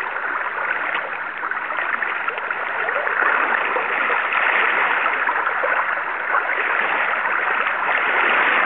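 River water rushing steadily, an even noise with no break.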